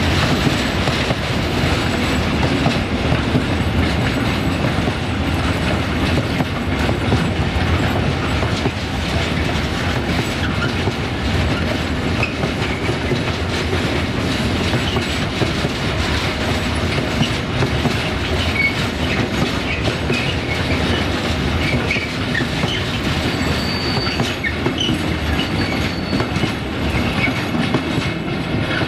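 Container wagons of a freight train rolling past, wheels clacking steadily over the rail joints. A few short, high wheel squeals come in the second half.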